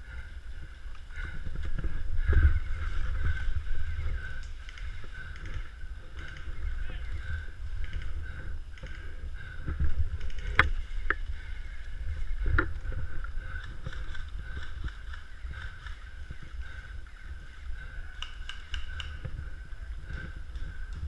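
Low rumble of wind and movement on a body-worn action camera's microphone, with a steady high hum. A few sharp snaps come about ten to twelve seconds in.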